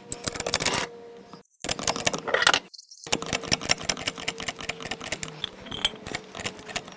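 Hydraulic trolley jack being pumped with its long steel handle under a car: rapid metallic clicking and clinking as the car is raised, broken by two brief gaps.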